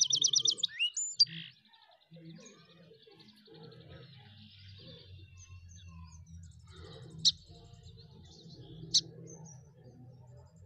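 Small birds chirping: a fast high trill in the first second or so, then two short sharp chirps later on, over a faint low hum.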